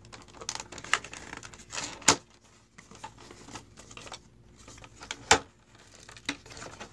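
Stiff cardboard phone box handled and pried open: irregular light clicks and paper scraping as the tight inner tray is worked out, with two sharp louder clicks about two and five seconds in.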